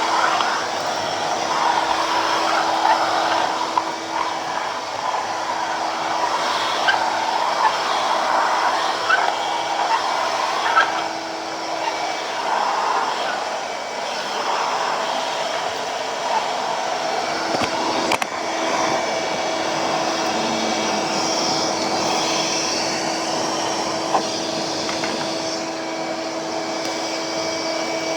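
A steady whirring motor with a constant whine.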